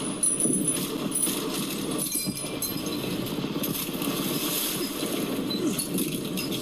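Sound effects from a DTS sound test clip played back through a pair of small HP S5000 2.0 desktop speakers: a continuous dense, noisy, engine-like rumble without breaks.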